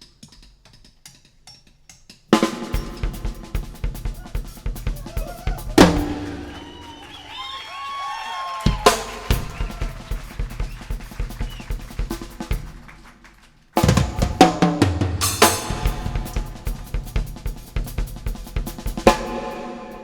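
Bass-heavy demo music with a drum kit. After a quiet opening the beat comes in about two seconds in, with strong bass under rapid drum hits and sliding pitched tones in the middle; it drops out briefly and returns loudly near the end.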